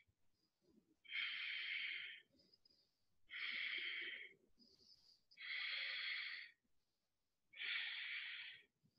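A woman breathing audibly and evenly while straining to hold a side plank: four long breaths, each about a second long, about two seconds apart.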